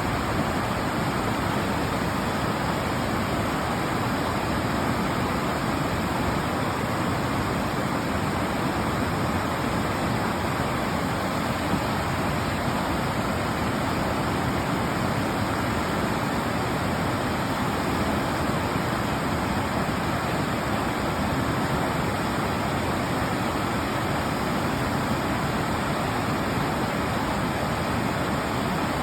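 Mountain river water rushing, a steady, even noise with no breaks or changes.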